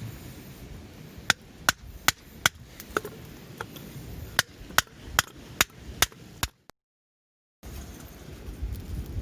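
A dozen sharp, evenly spaced hard strikes at about two and a half a second. After them the sound cuts out completely for about a second, and then a low rush of wind and fire comes back.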